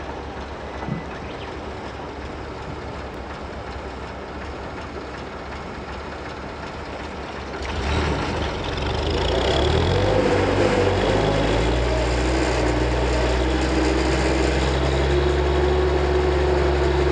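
Donkey engine running, a continuous low drone that grows louder about eight seconds in and settles into a steadier, fuller running sound.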